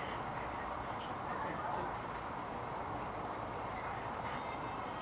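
Insects chirping in a steady, high, pulsing trill over a low, even background noise.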